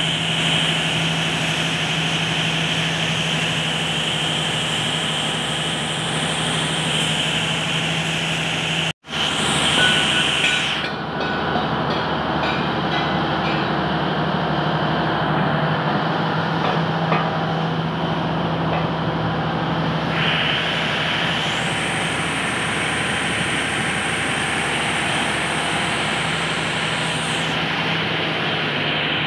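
Turbocharged diesel engine running steadily with its intercooler bypassed, a constant low hum under the engine noise. The sound drops out suddenly about nine seconds in, then comes back briefly louder before settling again.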